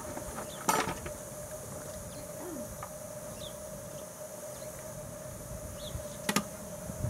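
10.25-inch-gauge miniature steam locomotive standing in steam: a steady high hiss and a steady whine, with two sharp metallic clicks, about a second in and near the end, as its cab fittings are handled.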